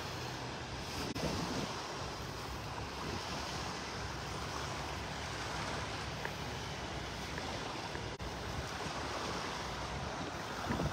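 Small surf breaking and washing on a sandy beach, a steady rush, with wind blowing on the microphone.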